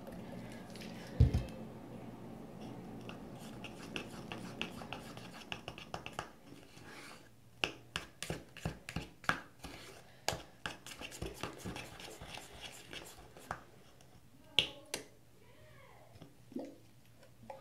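Sticky homemade slime being mixed after contact solution is added, giving a run of irregular sharp clicks and snaps. There is a single thump about a second in. The slime is still too sticky: not yet activated.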